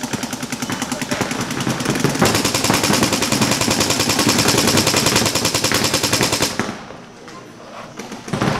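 Paintball markers firing in fast, rapid streams, many shots a second; the fire gets heavier about two seconds in and stops abruptly near the end.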